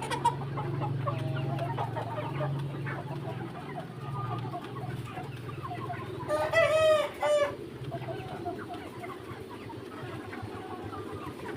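Flock of young Mía chickens clucking and peeping, with one loud drawn-out call lasting about a second a little past the middle, like a young cockerel's crow. A low steady hum runs under the first half.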